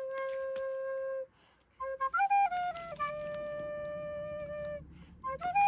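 Background music: a slow melody of single long held notes, one wind-instrument-like line with short breaks between phrases. A faint low hum sits underneath from about two seconds in.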